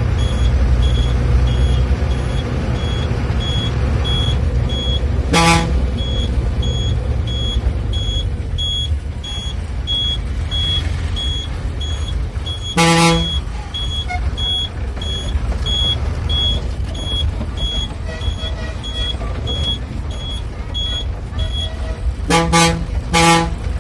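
Bus engine and road rumble heard from the driver's cabin, with the horn sounding in short blasts: once about five seconds in, again about thirteen seconds in, and twice in quick succession near the end. A faint high ticking about twice a second runs under it for most of the time and stops shortly before the last blasts.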